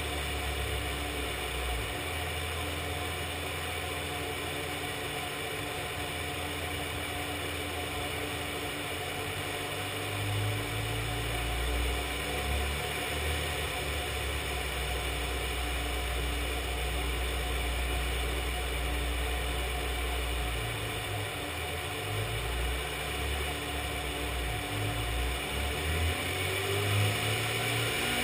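Classic Mini's engine running on a rolling-road dynamometer, its note holding steady with a few shifts in engine speed, and the revs starting to climb near the end.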